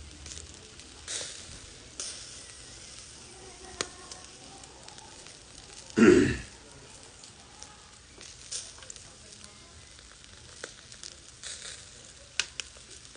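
Chicken wings sizzling on a rack over a charcoal shichirin grill, with sharp crackles and pops from the coals now and then. A loud thump about six seconds in.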